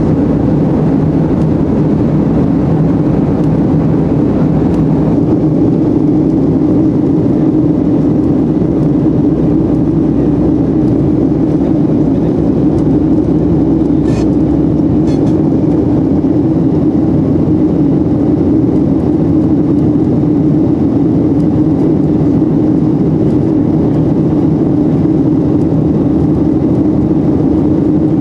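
Steady cabin noise of a Boeing 737-800 in flight, heard inside by a window over the wing: the drone of its CFM56-7B turbofan engines and the airflow over the plane, with a strong low hum.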